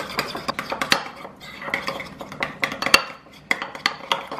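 Metal spoon clinking and scraping against a ceramic bowl while stirring a thick mayonnaise dressing: rapid clinks several times a second, with one sharper knock about three seconds in.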